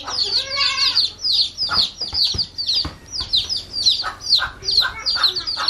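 Day-old chicks peeping nonstop: a rapid string of high, short cheeps, each sliding down in pitch. A mother hen's lower clucking calls come in about half a second in and again around four to five seconds, calling the chicks to her.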